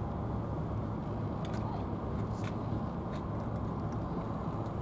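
Steady low outdoor rumble, with a few faint clicks.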